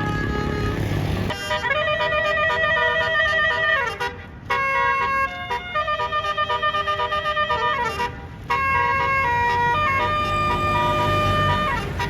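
Basuri multi-tone bus horn (telolet) playing a melody in three long phrases, each ending in a falling slide, with short breaks about four and eight seconds in. A low rumble runs underneath.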